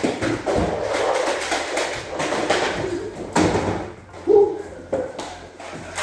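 Scattered thuds and taps of people running, ducking and firing foam-dart blasters, with a few sharper knocks about three to four seconds in.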